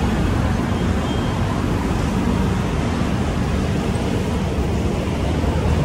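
Steady city road traffic: a continuous low rumble of passing cars and motorbikes on a busy multi-lane road.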